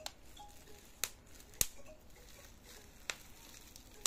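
A handful of sharp clicks and taps, about five spread over four seconds, from handling a small powered rotating display stand with a glass top while a box is set on it.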